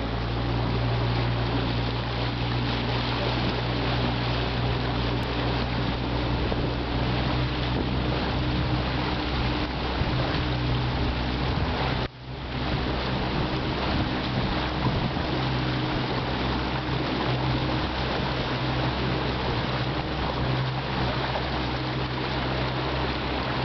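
A boat's engine running steadily at a constant low hum, under a rush of wind and water. The sound drops out for an instant about halfway through.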